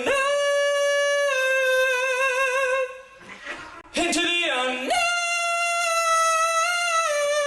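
A person singing long, high held notes with vibrato at a yowling cat to quiet it: two sustained notes with a short break about three seconds in, and a brief bending cry just before the second note.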